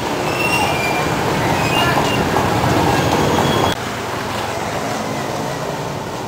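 Busy street traffic: motorcycle and tricycle engines running close by, with a few short high beeps over the rumble. About three and a half seconds in the sound cuts abruptly to a steadier, quieter road noise.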